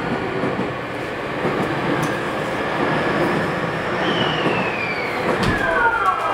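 Tokyu 2000 series electric train pulling away, with the rumble of the running gear and the whine of its Hitachi GTO-VVVF traction inverter. A high inverter tone starts about two-thirds of the way in and slides down in pitch, and more falling tones join it near the end.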